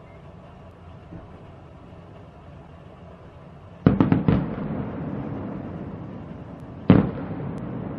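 Aerial firework shells bursting at a distance: a quick cluster of about four bangs about four seconds in, then a single bang about three seconds later, each trailing off in an echoing rumble.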